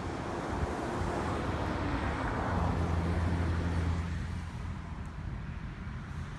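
A car driving, with tyre and road noise heard from inside the cabin. The noise swells toward the middle, with a steady low hum, and eases after about four seconds.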